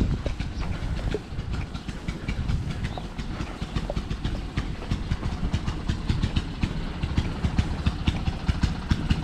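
Wind rumbling on the microphone over a dense, irregular crackle of footsteps crunching through snow.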